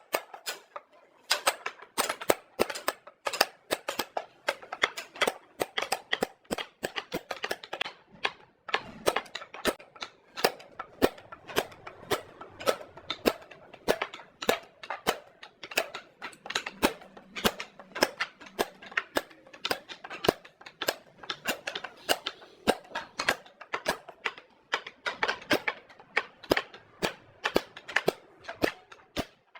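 Sharp taps and knocks in quick, irregular succession, several a second, from hand work on wood.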